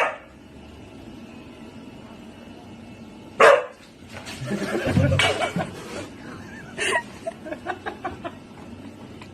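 A dog barking in single short barks a few seconds apart: one right at the start, one about three and a half seconds in, and one near seven seconds.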